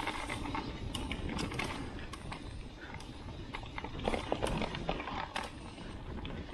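Mountain bike descending a dirt forest trail at speed: steady tyre noise and wind rumble on the microphone, with frequent sharp clicks and rattles from the bike over bumps, a cluster of louder knocks about four seconds in.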